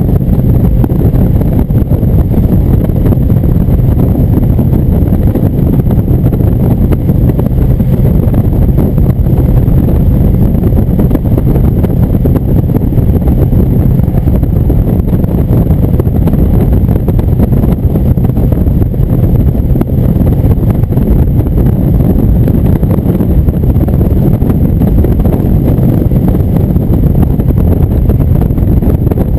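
Indian motorcycle's V-twin engine running steadily at highway cruising speed, mixed with wind rushing over the microphone.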